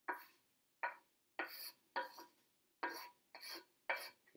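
A utensil stirring noodles in a pan: a run of about seven short scraping strokes, each starting sharply and fading, roughly two a second.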